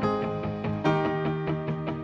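News intro theme music: a fast, even pulse of repeated notes over held chords, with the chord changing a little less than a second in.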